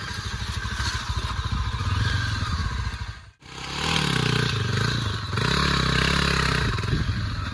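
Motorcycle engine running, its revs rising and falling, with some clatter. The sound drops out for a moment just after three seconds in, then comes back louder.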